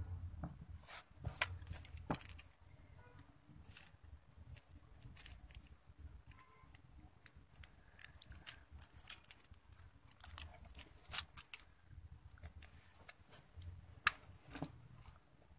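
Fine craft wire and crystal beads being handled and twisted by hand: irregular small clicks and scratchy rustles, with a few sharper clicks.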